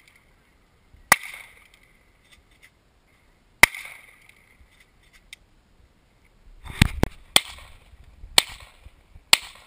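Handgun shots: two single shots about two and a half seconds apart, then a quicker string of about five shots over the last three seconds, each a sharp crack with a brief ring after it.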